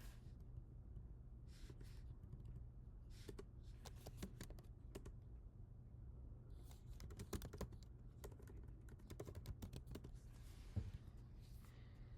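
Computer keyboard typing, faint, in several short bursts of keystrokes separated by pauses, with one louder key knock near the end.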